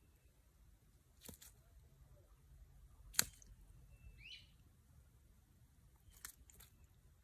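Near silence, broken by a few faint sharp clicks, the loudest about three seconds in, and a brief faint chirp about a second after it.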